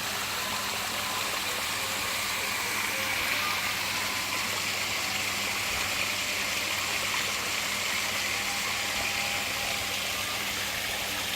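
Small artificial waterfall pouring into a pool: a steady rush of falling water, with a faint low hum underneath.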